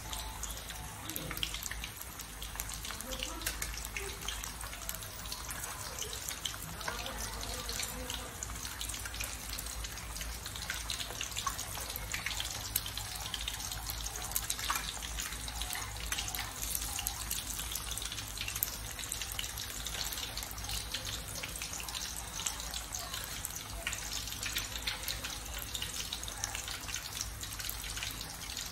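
Fish cakes frying in hot oil in a pan: a steady sizzle full of small crackles.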